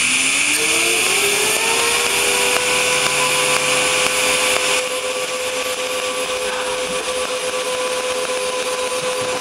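DC TIG welding arc from an HTP Inverarc 200 TLP inverter welder, pulse-welding at 72 amps and one pulse per second: a loud, steady hiss over a whine that rises in pitch in the first second and a half, then holds steady. The hiss eases slightly about five seconds in.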